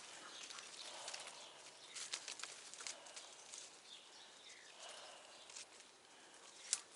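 Faint footsteps and rustling through brush and branches, with scattered soft clicks and snaps.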